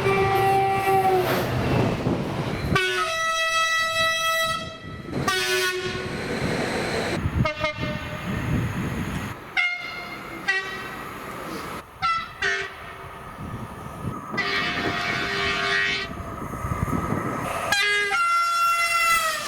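Train horns sounding in a quick series of cut-together clips: several different multi-tone horns, each blast lasting a second or two, with the rumble of moving trains between them.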